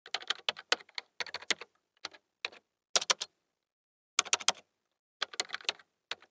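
Computer keyboard typing: short runs of quick key clicks with brief pauses between them.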